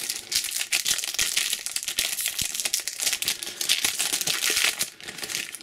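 Foil wrapper of a Topps Premier Club trading card pack crinkling continuously as hands work it open. The crinkling stops suddenly near the end.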